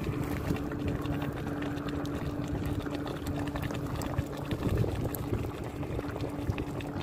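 A pot of soup bubbling at the boil over an open fire, with fine crackling throughout and a steady low hum underneath.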